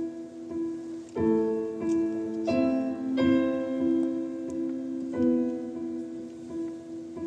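Live instrumental music: piano chords struck every second or two over held, sustained notes.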